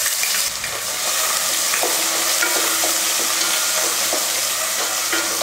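Chopped small onions frying in hot oil in a pan, giving a steady sizzling hiss; they have only just gone in.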